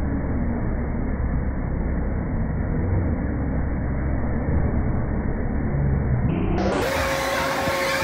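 Paratrooper carnival ride running: a steady low mechanical rumble, with a higher steady whine that rises in near the end.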